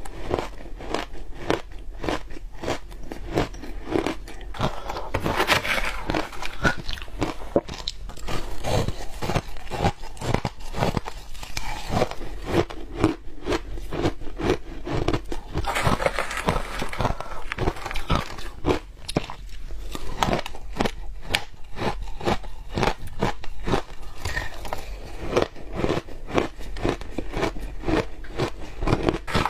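Crushed ice dusted with matcha powder being bitten and chewed: a steady run of crisp crunches, thickening into denser crunching about five seconds in and again around sixteen seconds.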